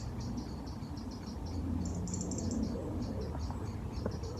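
Crickets chirping in a steady run of short, high-pitched pulses, several a second, over a low steady rumble.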